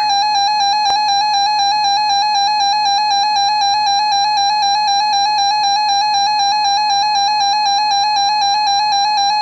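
Emergency Alert System alert tone: a steady electronic tone held at one unbroken pitch, with a single click about a second in.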